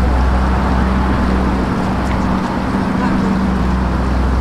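A vehicle engine running steadily with a low, even hum over street noise, slowly getting a little louder.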